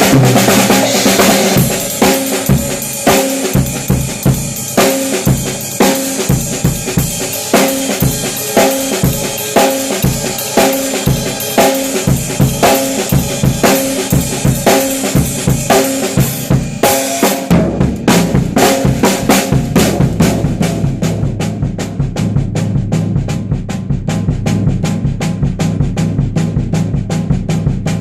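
Music with a drum kit keeping a steady beat over pitched instruments. About seventeen seconds in, the drumming changes to a quicker, denser pattern with a heavier bass line underneath.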